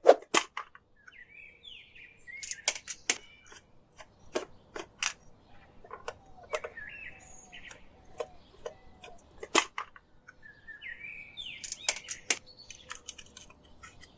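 Irregular sharp clicks and taps, a dozen or so, with birds chirping in short phrases twice in between.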